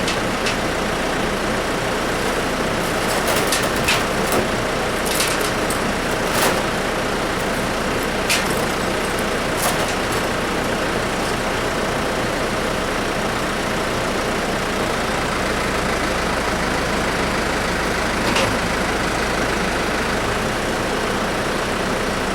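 A steady mechanical running noise, with a handful of short sharp knocks over the first ten seconds and one more later on.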